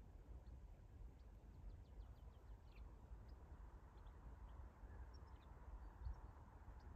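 Near silence at a rural trackside: a low rumble with scattered faint, short bird chirps.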